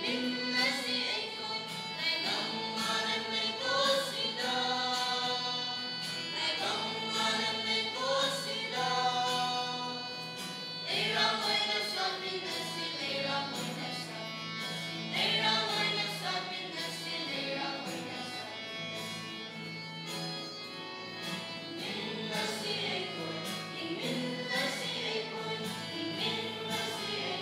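Choir singing a gospel song, many voices together.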